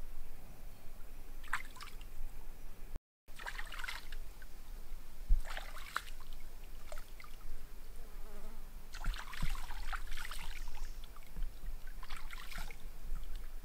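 Stream water splashing and trickling in irregular short bursts as plucked quail are dipped and rinsed by hand at the water's edge.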